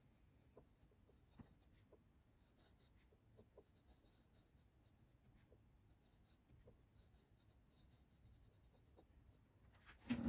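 Glass dip pen nib scratching faintly across notebook paper while writing cursive letters, with small scattered ticks as strokes are made. A brief louder sound comes right at the very end.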